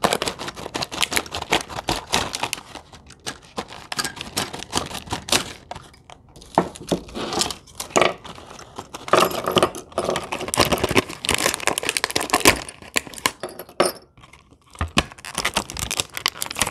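Clear plastic blister pack of countersink drill bits being torn open and handled: a dense, irregular run of crinkles, crackles and snaps, with the loose steel bits clinking.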